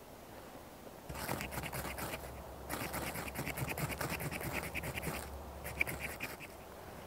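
Rapid scraping strokes of a striker on a ferrocerium rod (fire steel), throwing sparks onto tinder to light a campfire. The scraping starts about a second in and comes in three runs with short pauses between them, stopping a little after six seconds.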